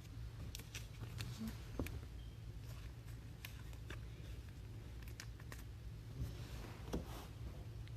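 Faint scattered clicks and light rustles of trading cards and their packaging being handled, over a steady low hum.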